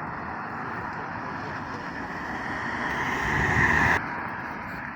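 Street traffic noise: a motor vehicle passing close by, growing louder over the first four seconds, then dropping away suddenly.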